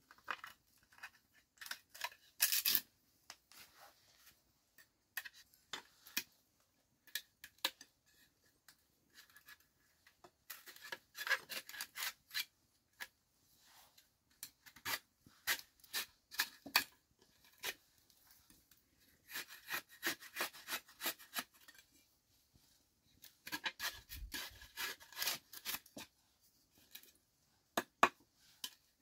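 A knife blade scraping and shaving along strips of bamboo in runs of short strokes, with pauses between the runs.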